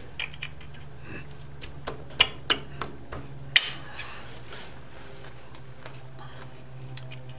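Scattered light clicks and taps of hands working a timing belt tensioner pulley and belt on a Ducati engine, the sharpest about two and three and a half seconds in, over a steady low hum.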